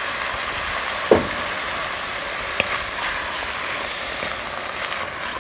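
Chopped vegetables and tomatoes sizzling steadily in a hot enameled Dutch oven while being stirred with a wooden spoon, which knocks against the pot twice.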